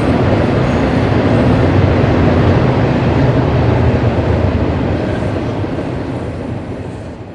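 Freight train cars rolling past on the track: a steady noise of wheels on rail from an intermodal train's container well cars and autoracks, fading out near the end.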